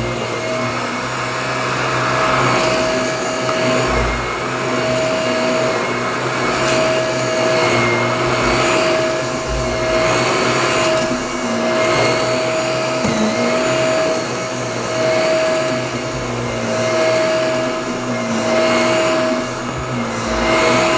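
Household vacuum cleaner running continuously, its motor whining steadily, the loudness swelling and easing every couple of seconds.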